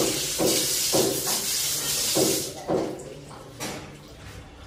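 A jet of water gushing from a wall tap's hose and splashing onto the floor and a hanging sheep carcass. It cuts off about two and a half seconds in.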